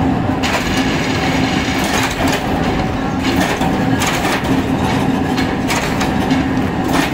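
Plywood factory machinery running steadily with a constant low hum, and irregular clattering knocks over it.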